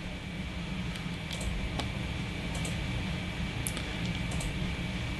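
Steady low room hum, like a computer fan, with a few faint, scattered clicks.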